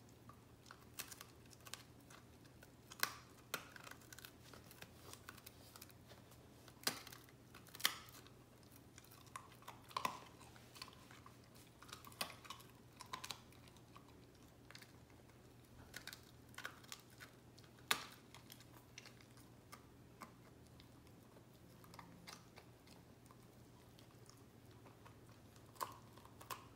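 Samoyed chewing and crunching a dry biscuit treat taken from a hand: irregular sharp crunches and clicks, a few louder bites among quieter nibbling.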